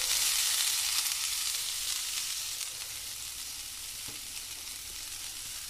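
Hot olive oil sizzling in a non-stick frying pan as grated coconut is tipped in; the sizzle is loudest at first and dies down over the next few seconds to a quieter, steady frying.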